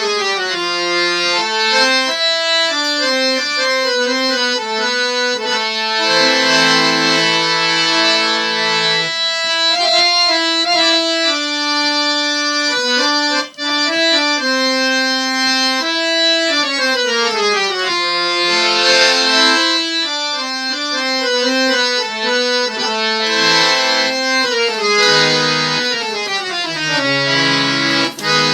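Harmonium with male, male and female reed sets and the coupler engaged, playing a melody in quick stepwise runs with held chords. There is a brief break about halfway through.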